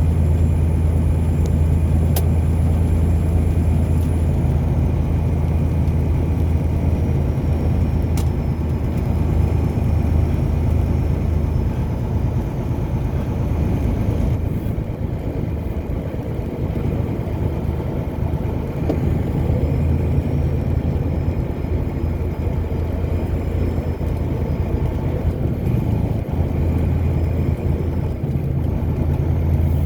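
A car driving along at a steady speed: a continuous low engine drone under tyre and road noise.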